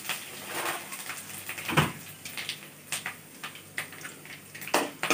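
Curry leaves, dal and tempering spices frying in hot oil in an aluminium kadai: a soft, steady sizzle that slowly dies down, broken by a few sharp clicks and knocks.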